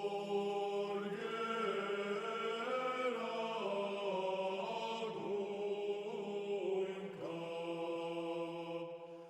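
Background music of sung chant: a low note held steadily as a drone beneath a slow, gliding vocal melody.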